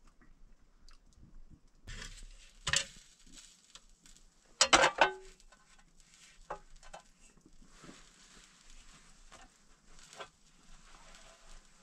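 Close handling sounds: cloth rustling and a few knocks and clatters of objects being moved. A sharp knock comes a little under three seconds in, and the loudest, a short rattling clatter with a brief ring, comes about five seconds in.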